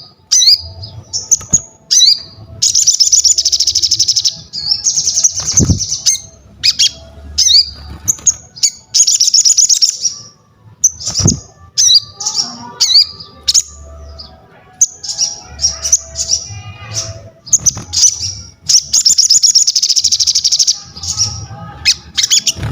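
A sogon songbird singing vigorously in full 'gacor' song: high, rapid trilled phrases and sharp chirps, with several long dense trills lasting a second or two.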